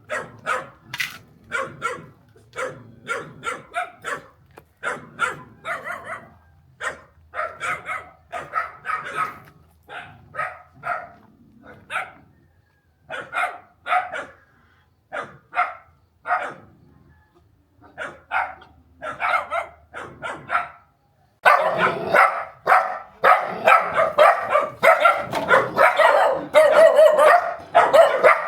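Dog barking repeatedly in runs of short barks, with a few brief pauses. About three quarters of the way through, the barking turns louder and denser, nearly continuous.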